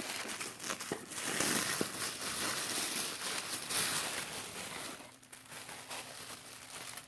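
Paper gift wrapping being crinkled and torn open by hand. It is busy for about five seconds, then quieter.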